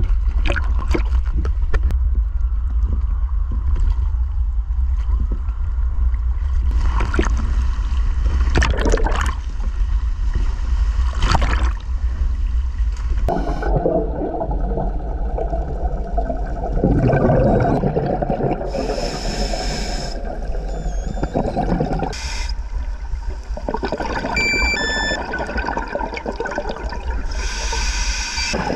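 Muffled underwater sound through a camera housing: a constant low rumble, with splashing knocks and clicks as the camera goes under, then from about halfway bursts of bubbling from scuba regulator exhausts.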